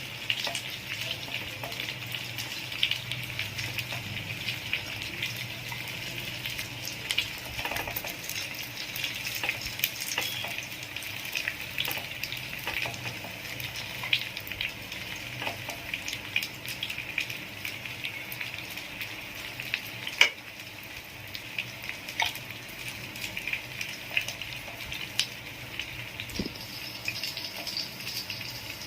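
Peanut-butter-coated chicken breast pieces frying in olive oil in a pan: a steady sizzle full of small crackles and pops, with a few sharper clicks, the loudest about twenty seconds in.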